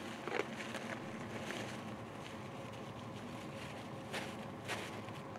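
Steady outdoor background noise, with a few short scuffs or knocks: one just after the start and two about four to five seconds in.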